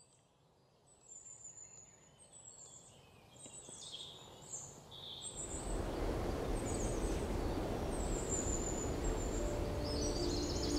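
Birds chirping in short high calls, then about five seconds in a steady rushing noise fades in and builds, holding loud to the end, with birds still calling over it.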